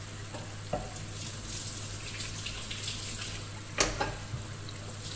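Chicken pieces simmering and sizzling in a wet sauce in a wok, with a wooden spoon stirring and knocking against the pan a few times, the loudest knock just before four seconds in.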